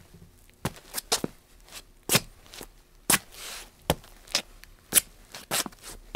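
Feet of a person dancing on a hard floor: irregular taps and stomps, roughly two a second, with a couple of soft shuffling scrapes between them.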